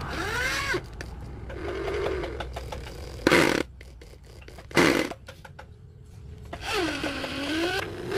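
Corded electric drill boring into solid wood, its motor whine rising and falling in pitch as the trigger is squeezed and eased, with two short, loud bursts in the middle.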